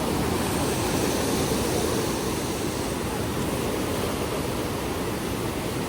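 Huka Falls on the Waikato River, a large volume of water rushing steadily through the gorge.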